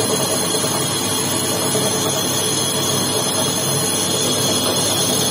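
Metal lathe spinning a motorcycle clutch housing as the cutting tool machines it: a steady, loud machining noise with several thin, high-pitched ringing tones held over it.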